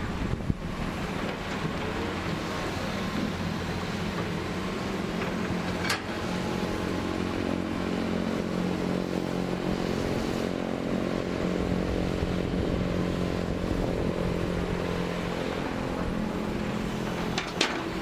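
Hitachi hydraulic excavator's diesel engine running steadily through a load-and-dig cycle, pulling harder and louder in the middle while the bucket digs, with a few sharp clanks of the bucket and rock.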